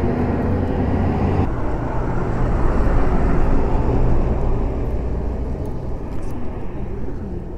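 A motor vehicle engine running with a steady low hum, growing louder to a peak midway and then fading away.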